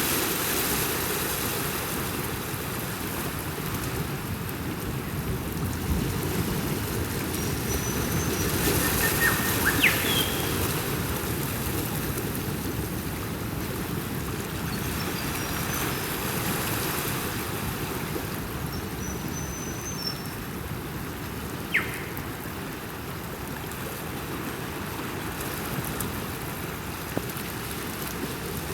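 Ocean surf washing continuously, swelling every several seconds as waves come in, with a few short bird chirps over it.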